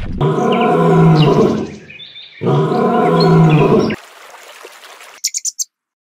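An animal calling twice, two loud calls of about a second and a half each with a short gap between them, then a quick run of high chirps near the end.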